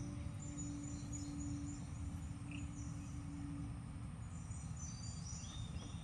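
Outdoor ambience: a steady low rumble with a held low hum that stops about four seconds in, and two spells of short, thin, high-pitched chirping, near the start and near the end.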